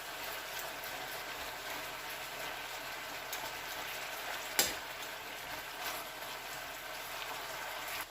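Chicken thighs in marinade sauce bubbling and sizzling steadily in a frying pan, with one sharp knock about halfway through.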